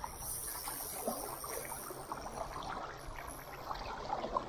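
River water lapping and moving around a fishing kayak, with scattered small clicks and taps throughout.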